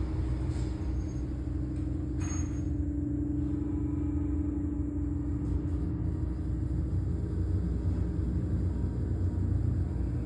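Modernized elevator cab travelling up, with a steady low rumble and hum. A sharp click comes about two seconds in.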